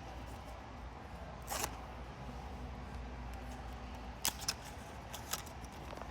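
A cardboard blind box being opened by hand: a few short, sharp crackles and clicks of the packaging.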